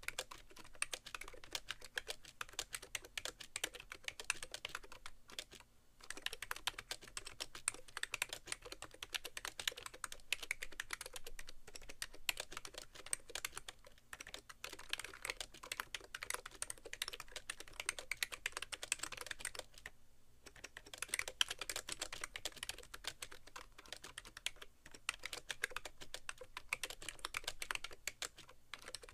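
Fast touch-typing, about 80 words a minute, on a BTC 5100c (SIIG Minitouch Plus) mini keyboard with rubber-dome keys and sliders, set straight on a keyboard tray with no towel under it. A dense run of key presses, with brief pauses about six seconds in and around twenty seconds in.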